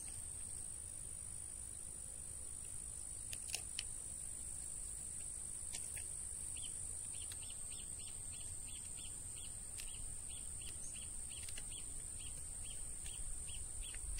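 Steady high-pitched trilling of insects, and from about six seconds in a bird repeating a short chirp about three times a second.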